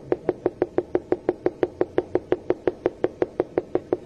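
Marker tip tapping dots onto a whiteboard: a quick, even run of sharp taps, about six a second.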